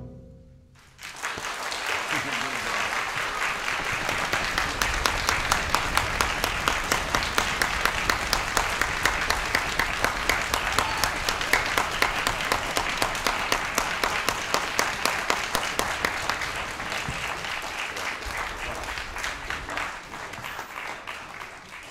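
Audience applauding after the last orchestral chord dies away; the clapping starts about a second in, falls into a steady rhythmic beat through the middle, and tapers off near the end.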